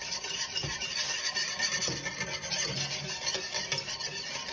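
Wire whisk scraping and swishing against the bottom of a stainless steel pan in uneven strokes, whisking lemon juice and cornstarch slurry into a simmering sauce.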